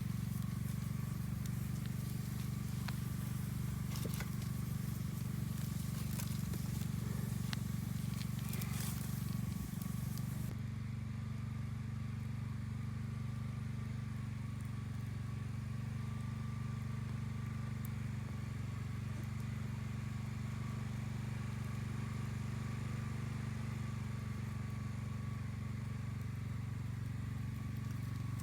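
Campfire crackling, with sharp pops over a steady low rumble; the pops thin out about ten seconds in.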